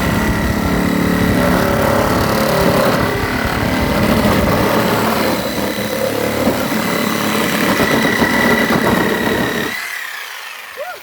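Power tool cutting through a metal steering bar: a loud, steady motor whine over rough grinding chatter. About ten seconds in, the whine drops in pitch and stops.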